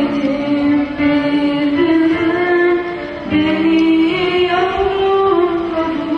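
A woman singing an ilahi, a Turkish Islamic hymn, into a microphone, holding long notes that glide from one pitch to the next.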